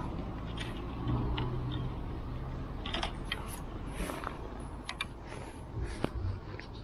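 Close-up handling of fishing tackle: scattered small clicks and rustles of plastic and gear in the hands, over a low steady rumble.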